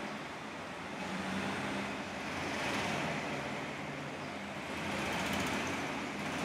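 Steady rushing background noise that swells and fades a few times.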